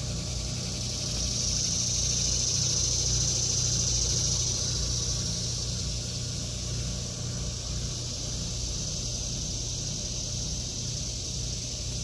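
Cicadas buzzing in a steady high chorus that swells over the first few seconds and then eases back a little, over a low steady hum.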